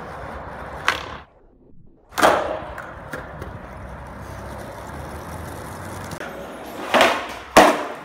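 Skateboard on rough concrete: a sharp wooden clack about a second in, a loud board slap just after two seconds, then the wheels rolling steadily. Near the end come two more loud clacks about half a second apart, a pop and landing of a flatground trick.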